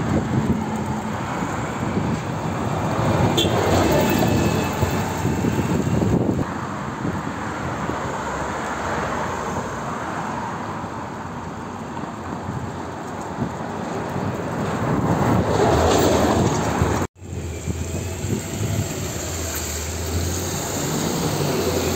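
Street traffic with double-decker buses and cars passing, the noise swelling as vehicles go by about 4 and 16 seconds in. An abrupt cut then gives way to a bus engine's steady low hum.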